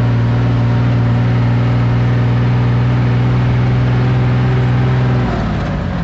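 Loaded truck's engine heard from inside the cab, running at a steady pitch under load. Near the end its pitch falls and settles lower as the revs drop.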